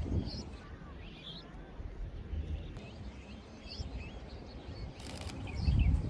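Small birds chirping, with short scattered calls over a low outdoor rumble. Near the end comes a brief run of rapid clicks and a swell of low rumble.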